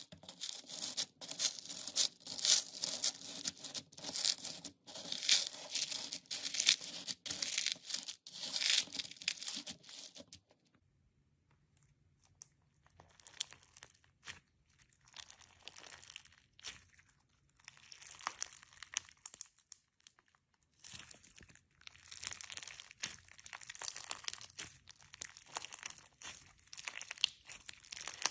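Slime being worked by hand, a dense run of small crackles and pops. It is loud for about the first ten seconds, stops briefly, comes back softer, and grows louder again in the last third.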